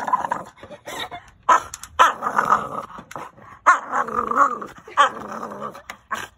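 French bulldog growling in a series of irregular bursts, some short and some drawn out about a second, while biting at a plastic pool-ladder rung in play aggression.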